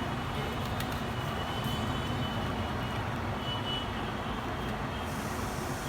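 Steady low background rumble with a few faint, thin high tones and light clicks over it.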